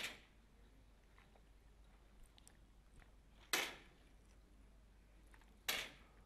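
Three sharp cracks of 10 m air pistols firing, each with a short echo. They come at the very start, about three and a half seconds in, and near the end, as the finalists take their shots.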